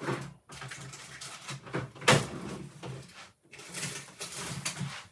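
Irregular knocks and rustling of things being handled, with one sharp knock about two seconds in.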